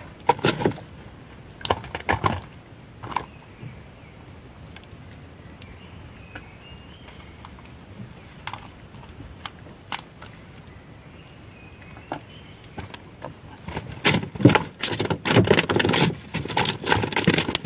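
Scattered knocks and clicks of gear being handled. A dense run of rattling and clatter starts about four seconds before the end and is the loudest part.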